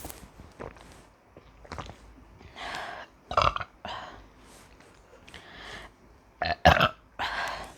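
A woman burping loudly from drinking carbonated cola, several burps with the loudest about halfway through and a quick pair near the end. Quieter hissy sounds come between them.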